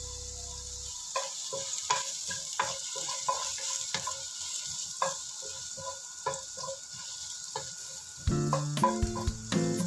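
Ginger and garlic sizzling in hot oil in a pan while being stirred, the utensil tapping and scraping against the pan about once or twice a second. Background music comes in near the end.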